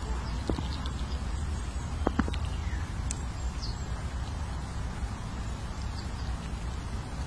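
Outdoor background: a steady low rumble, with a few short, high, falling chirps of small birds and a couple of sharp clicks about two seconds in.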